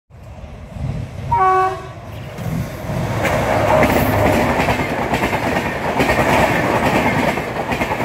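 WDP4D diesel locomotive sounding a short single honk on its horn about a second in, then passing close at speed with its passenger coaches. The rumble of the locomotive and the clickety-clack of wheels over the rail joints build from about three seconds in and stay loud.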